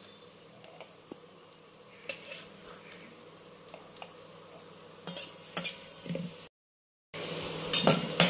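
Metal spatula scraping and clinking against a steel kadai as fried diced carrots, green beans and cashews are scooped out onto a steel plate, over a faint sizzle of oil. The sound drops out for a moment about six and a half seconds in, then comes back louder, with sizzling and clattering.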